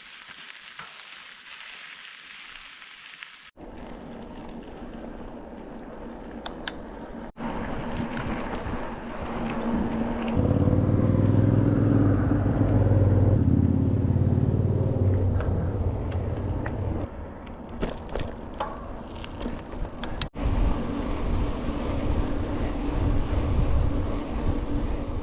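Bicycle ride sound: wind rumbling on the microphone and tyre noise, in short pieces that cut abruptly from one to the next. In the middle a louder engine-like drone rises and fades, as from a passing motor vehicle.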